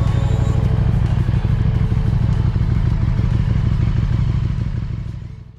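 KTM 1290 Super Duke GT's V-twin engine with Akrapovic exhaust running steadily under way, a dense low pulsing, fading out near the end.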